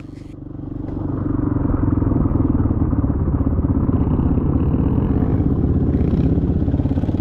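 Dirt bike engine running under throttle, heard up close from the rider's own bike. It grows louder over the first two seconds, then holds steady.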